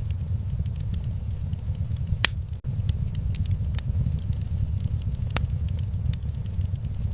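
Wood fire crackling in a fireplace: irregular sharp pops and snaps over a steady low rumble, with one louder pop about two seconds in.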